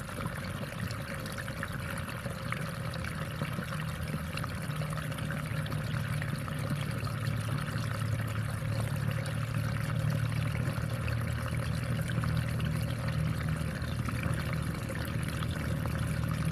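Water pouring and trickling steadily in a rice paddy, with a low rumble underneath that grows louder from about five seconds in.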